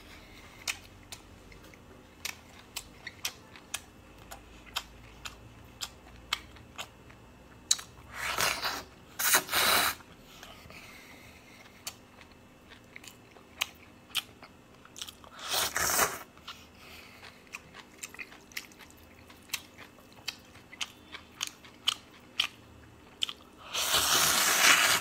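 A person eating cold noodles: wet chewing with many small mouth clicks, and loud noodle slurps twice around eight to ten seconds in, once around sixteen seconds, and once near the end.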